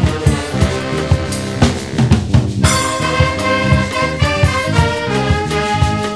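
Brass fanfare band playing a lively Réunion tune: bass drum and snare keep a steady beat under the horns, with a bright crash a little under three seconds in.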